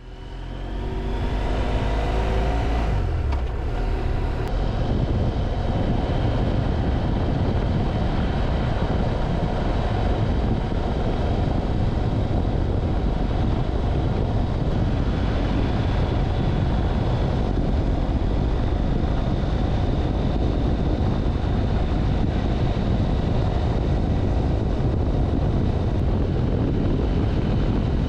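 BMW F700GS parallel-twin motorcycle engine accelerating, its pitch rising over the first few seconds, then riding at steady speed with engine rumble under loud wind and road noise on the handlebar-mounted camera.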